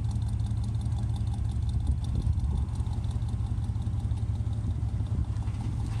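Car engine running steadily, a constant low drone.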